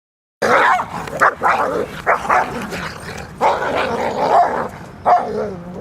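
Dog barking loudly in a quick series of short barks, starting abruptly about half a second in, with a longer run of barking in the middle.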